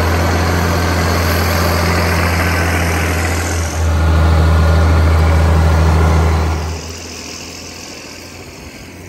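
International Harvester 5088 tractor's 7.1-litre turbocharged six-cylinder diesel running steadily under load while pulling a five-bottom moldboard plow, with a strong low hum. The sound falls away sharply about seven seconds in.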